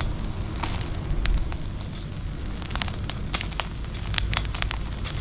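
Charcoal fire crackling under meat on a wire grill: sharp pops and crackles, coming thick and fast in the second half, over a steady low rumble.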